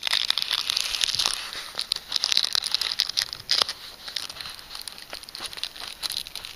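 Crinkling and crackling of the inflatable bed's vinyl and the patch's plastic film as a rubber repair patch is laid on and pressed down by hand. It is busiest in the first four seconds and thins out after.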